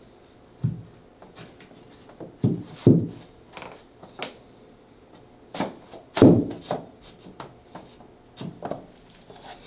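Vinyl floor planks being laid and knocked together: a series of irregular knocks and thumps, the loudest about three and six seconds in, with faint rubbing between.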